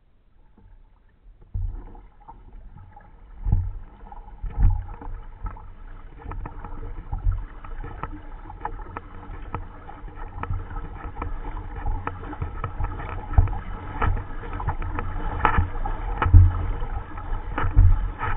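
Water sloshing and knocking against a plastic kayak's hull as it is paddled toward shore, heard close up from the bow. It sets in about a second and a half in, with irregular knocks growing louder toward the end.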